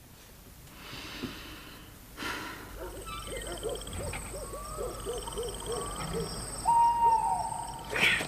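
Owl hooting: a quick run of repeated hoots about three seconds in, then a higher call that falls away near the end. A steady high-pitched insect chirring runs behind it, giving a night-time ambience.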